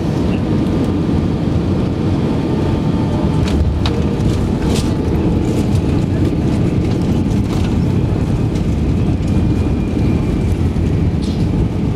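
Airliner cabin noise while taxiing after landing: the jet engines and rolling gear make a steady low rumble, with scattered light clicks and rattles.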